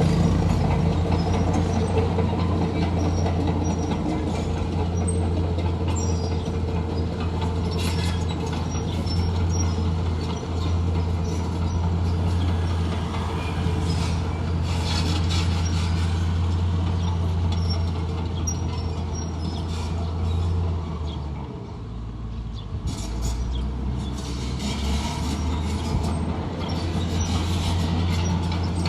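Heavy diesel engine of earthmoving machinery running steadily with a deep hum, easing briefly a little past two-thirds of the way through. Stretches of higher clattering noise come and go over it.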